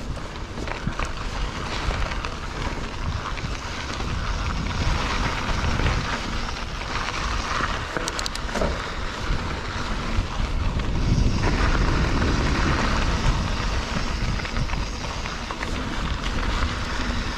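Mountain bike riding a dirt trail: steady tyre and drivetrain rattle over rough ground, with wind buffeting the microphone. A few brief clicks about halfway through.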